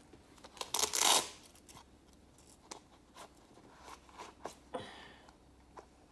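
Leatherman multi-tools being handled: a short rustling scrape about a second in, then scattered small metallic clicks and taps, one with a brief ring.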